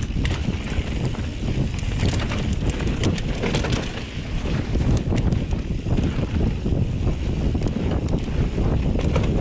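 Wind buffeting the microphone over the rumble of a mountain bike rolling fast down a dry dirt trail, with frequent rattles and knocks from the bike over bumps.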